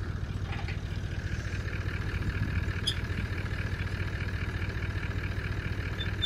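A vehicle engine idling steadily, a low, evenly pulsing rumble with a faint ticking or two over it.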